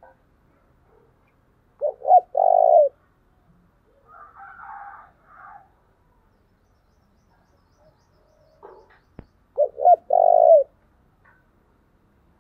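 Spotted dove cooing: two song phrases about eight seconds apart, each two short coos followed by one longer coo. A fainter, higher sound comes between the phrases, and a single sharp click sounds just before the second phrase.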